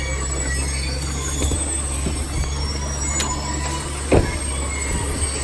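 Scrapyard machinery noise: a steady low engine hum with scattered high metallic squeals, and a single knock about four seconds in.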